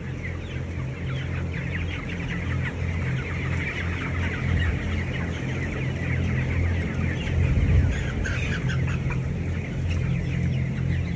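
A large flock of 22-day-old broiler chickens chirping and clucking all at once in a constant overlapping chatter, over a steady low hum.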